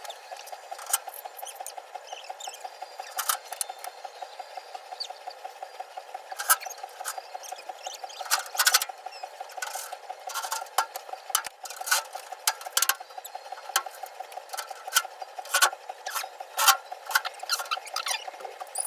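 Electric welding arc on the boiler's steel: a steady buzz with irregular crackles and sharp pops throughout.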